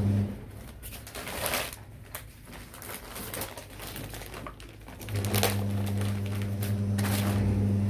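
Cloth and plastic packaging rustling and crinkling as a folded suit is handled, with a few short crackles. A steady low hum comes in about five seconds in.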